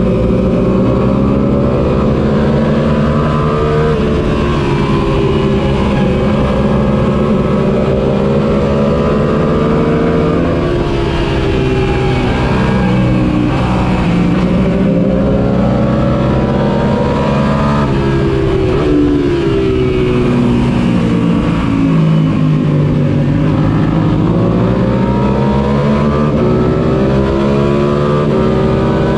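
Suzuki SV650's 645 cc V-twin engine, recorded onboard at race pace: the revs climb through the gears, drop twice, then rise again.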